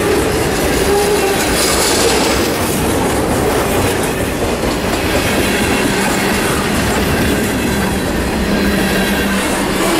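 Freight cars of a long mixed freight train rolling past at about 30 mph, a steady loud rumble of wheels on the rails.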